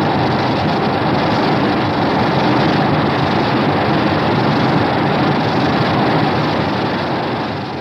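A monster sound effect: a long, dense rumbling rush of noise that starts suddenly, holds steady, and fades out near the end.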